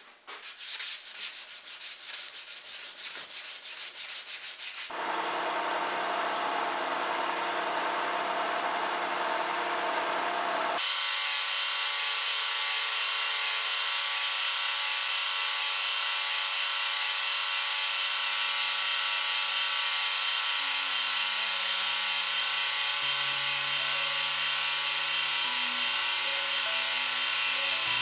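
Hand scraping strokes on an English walnut rifle stock for the first few seconds. Then a milling machine runs, and its end mill cuts steadily into the walnut stock blank with a high, even hiss. Low, stepping musical tones come in during the second half.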